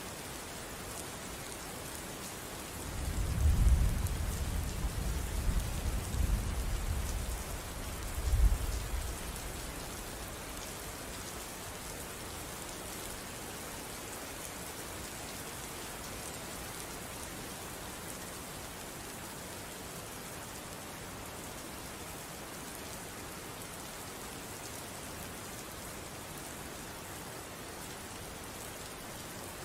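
Steady rain falling. About three seconds in, a low rumble of thunder rolls in and lasts several seconds, swelling again around eight seconds before fading.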